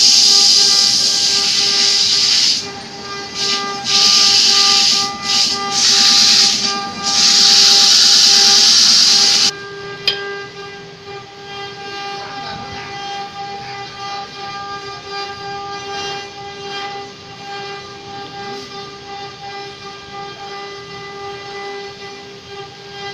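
Wood lathe spinning a turned wooden piece while sandpaper is held against it by hand: a loud hiss, broken by a few short lifts, over the lathe motor's steady hum. The hiss stops suddenly about nine and a half seconds in, leaving the motor humming alone.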